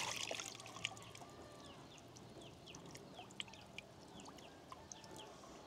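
Birds chirping over and over in short, quick notes, with a brief rush of water right at the start as a plastic bag of wet gold concentrate is squeezed out into a basin.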